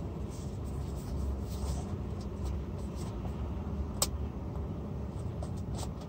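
Steady low rumble of an idling truck engine heard inside the cab, with faint clicks and rustles of a paper cup and its plastic lid being handled; one sharp click about four seconds in.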